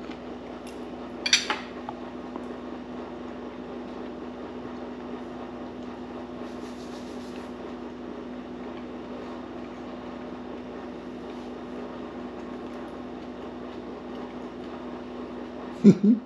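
A fork or other cutlery clinks sharply against a plate about a second in, over a steady low hum of room tone. Near the end comes a brief, loud sound from a voice that rises in pitch, like an appreciative 'mm' while chewing.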